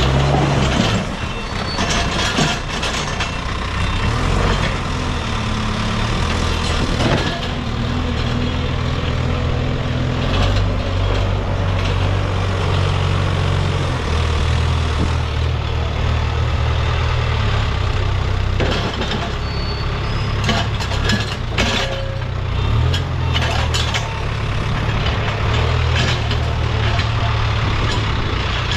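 Diesel engine of a Case backhoe loader running under varying load, its note rising and falling as the machine works, with scattered knocks and clanks throughout.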